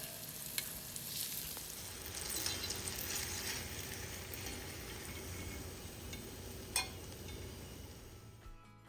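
Hot oil sizzling steadily as food deep-fries, with one sharp click about seven seconds in; the sizzle fades out near the end.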